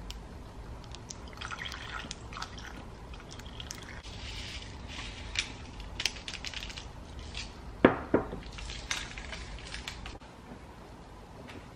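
Milk poured over ice cubes in a tall glass, with liquid sounds and small clinks of ice. About eight seconds in come two sharp knocks close together, the glass set down on the countertop.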